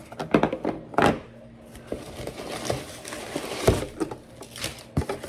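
Packaging and small objects being handled while a parcel is unpacked: crinkling and rustling with a string of small clicks and knocks. The loudest knocks come about a second in and again near the four-second mark.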